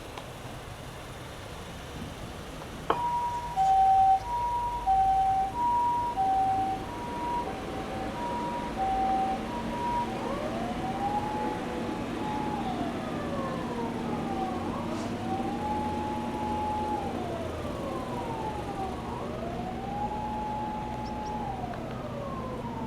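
Siren of a 2008 Toyota HiAce HiMedic ambulance on test through its siren amplifier and speaker. After a click about three seconds in, it sounds the Japanese ambulance two-tone hi-lo (pee-po). About ten seconds in it switches to a slow wail that rises, holds and falls every four to five seconds.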